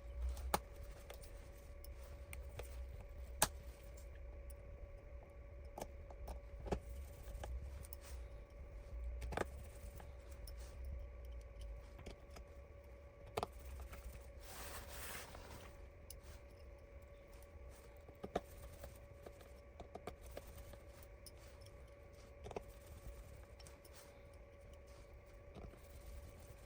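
Faint, scattered clicks and taps of small repair tools and phone parts being handled during reassembly, with a brief rustle about fifteen seconds in, over a faint steady hum.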